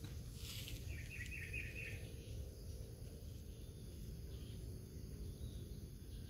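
Outdoor ambience: a steady low rumble, with a short run of high chirping about a second in.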